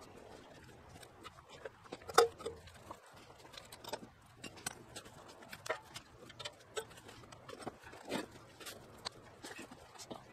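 Irregular clicks and knocks of metal bandsaw-mill parts being taken from a cardboard box and set down on a wooden frame, mixed with footsteps on gravel; the loudest knock comes about two seconds in.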